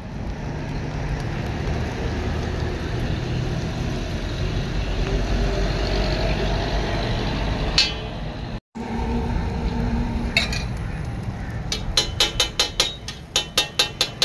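A flat metal blade striking a hot iron tawa in a quick run of sharp clicks, about four a second, starting near the end as butter is chopped on the griddle. Before that, a steady low rumble.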